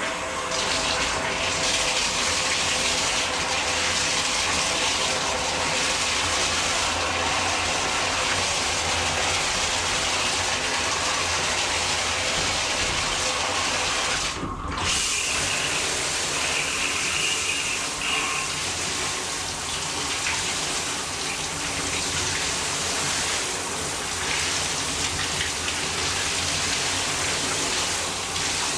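Shower running: a steady spray of water hissing, with a brief dip about halfway through.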